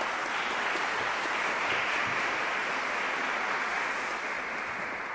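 Audience applauding after a talk, the clapping dying away near the end.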